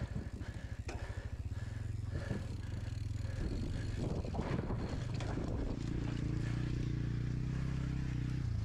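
Low wind rumble and buffeting on a GoPro microphone sealed inside its case while riding a mountain bike. It pulses unevenly at first and grows steadier in the last few seconds.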